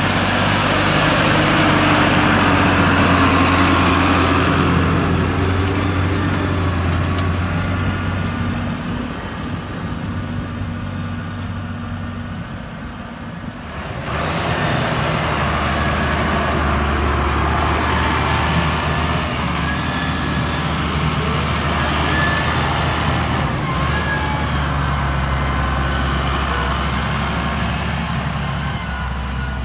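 Case IH Maxxum 5150 tractor's six-cylinder diesel engine working steadily under load while pulling a plough through the field. It is loudest in the first few seconds as the tractor passes close, eases off, then jumps back up about halfway through and runs steady again.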